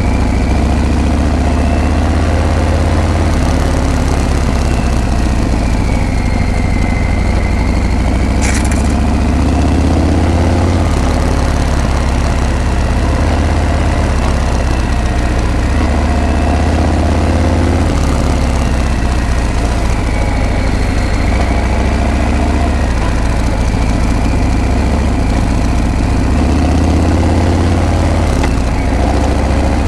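Harley-Davidson Breakout's V-twin engine and exhaust running steadily under way, its pitch rising and falling every few seconds as the revs change. A single short click comes through about a third of the way in.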